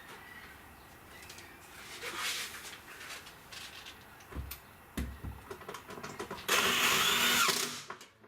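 Power drill driving in a screw for about a second near the end, its motor whine rising and then falling, after a few knocks and handling sounds as a wire strap is fastened up.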